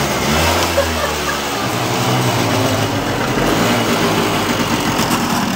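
Small motor scooter engine running, its pitch rising briefly near the start and then holding steady.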